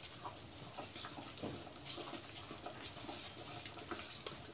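A hand mixing thick oats-and-besan batter in a steel pot: soft, irregular wet sounds of the batter being worked, with a steady faint hiss underneath.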